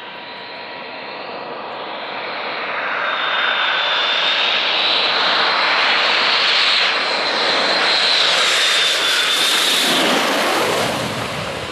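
Saab 37 Viggen's Volvo RM8 jet engine, approaching head-on with a high whine over a rushing noise that grows steadily louder. About ten seconds in it passes overhead: the whine drops in pitch and the sound falls away.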